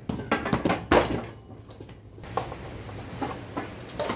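Clanks and knocks of rusty steel bicycle parts being handled while the rear wheel and sprockets are taken apart: a quick cluster in the first second, the loudest just before the one-second mark, then a few lighter knocks.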